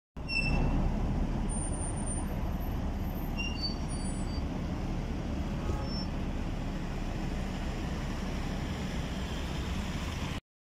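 City bus passing close by, its engine running steadily over the noise of road traffic.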